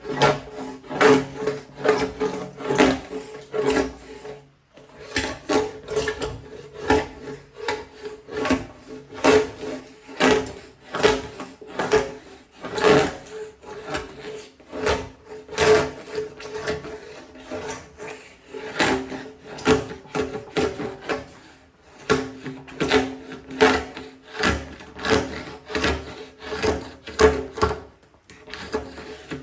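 Hand scraper working across the seams of a glued-up wooden tabletop, taking off dried glue beads: a long run of rasping strokes, about two a second, with a few short breaks.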